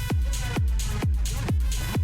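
Electronic dance music with a steady kick drum, about two beats a second, and hi-hats over it.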